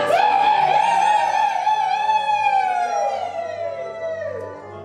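Music: one long high note, held with a wavering vibrato for about three seconds, then sliding down in pitch and fading near the end.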